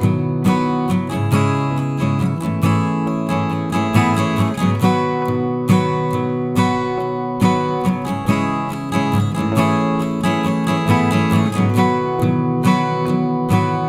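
Background music: strummed and plucked acoustic guitar with a steady beat.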